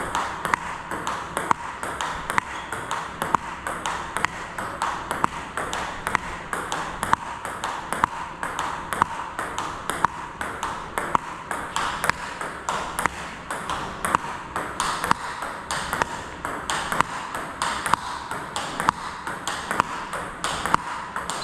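Table tennis ball in a continuous counter-hitting rally: an even, unbroken run of sharp clicks, several a second, as the ball strikes the rubber-faced bats and bounces on the table.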